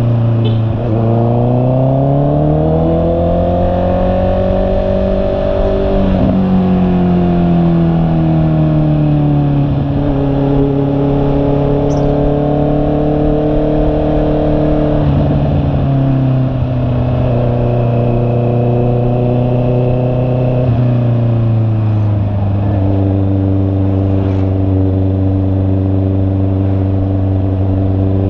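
2021 Honda CB650R's 649 cc inline-four engine running on the road. The revs climb over the first few seconds, ease back, then step sharply in pitch a few times as gears change before the bike settles into steady cruising.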